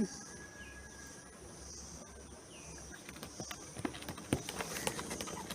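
Steady high-pitched drone of insects, likely cicadas, with a few short bird chirps; from about halfway through, a run of quick clicks and rustles joins in.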